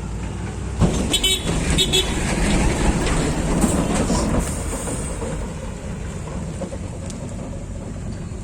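Heavy diesel machinery running: a low engine drone that suddenly gets louder about a second in, with sharp metallic clanks and short tones over the next few seconds, then eases off.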